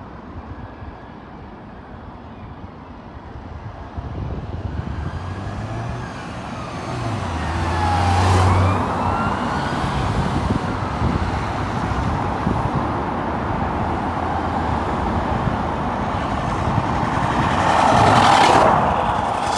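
Police car sirens wailing up and down as a convoy of several response cars approaches and passes, growing louder over the first eight seconds or so, over the noise of engines and tyres, with a loud rush of a car going by near the end.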